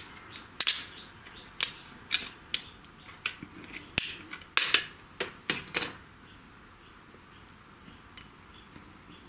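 Sharp clicks and knocks from a hard 3D-printed plastic part being handled and turned over, about ten of them irregularly over the first six seconds, then quieter.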